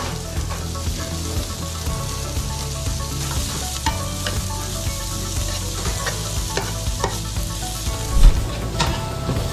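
Sliced onion, garlic and ginger sizzling in oil in a frying pan, with scattered clicks of a utensil against the pan as it is stirred. A dull thump about eight seconds in is the loudest moment.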